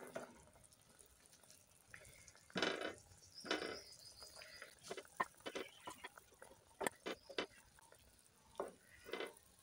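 Wooden spoon lifting boiled chicken pieces out of the cooking water in a pan and dropping them into a steel bowl: faint splashes and drips with light knocks on the metal, coming in scattered bursts.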